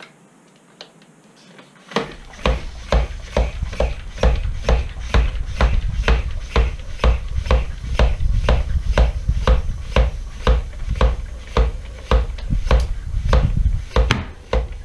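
Floor pump worked hard and fast, rhythmic strokes about three a second, starting about two seconds in, inflating a tubeless mountain bike tyre with a rim-protection insert inside.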